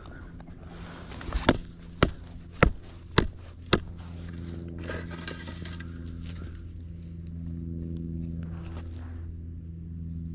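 Footsteps crunching on gravel railroad ballast: five steps about half a second apart, then quieter. Under them runs a steady low drone.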